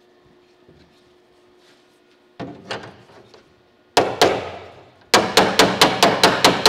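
Steel hammer striking a dolly through the tacked edge of a 1970 Holden HG ute's sheet-steel roof skin, with the hammering on the tack weld working the corner down. A few light taps come about two and a half seconds in, then two hard ringing blows at about four seconds, then a fast, even run of about four to five ringing blows a second.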